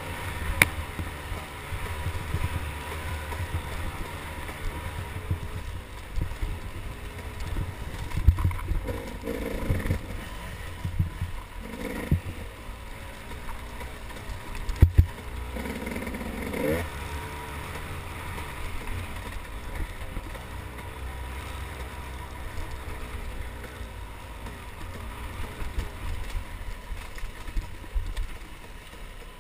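Off-road dirt bike engine running under way on a rough trail, heard from on the bike, its revs rising and falling. Several sharp knocks cut through as the bike jolts over bumps.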